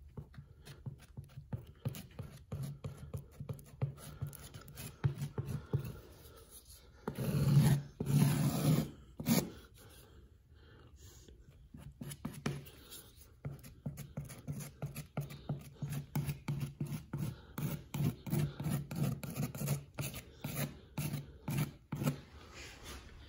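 Putty knife scraping caulk across a textured wall, in many short repeated strokes, with a louder scuffing stretch about seven to nine seconds in.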